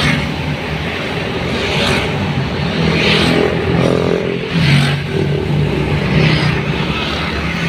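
A vehicle's engine running steadily with road noise while driving, with recurring swells of hiss.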